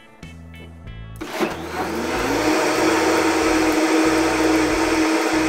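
Countertop blender switching on about a second in, its motor spinning up with a rising whine and settling into a loud, steady high speed while it blends a liquid brine with garlic cloves and whole pickling spices.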